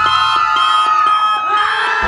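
Steady electronic alarm tones, several held pitches at once, mixed with music and crowd noise. The tones fade out near the end.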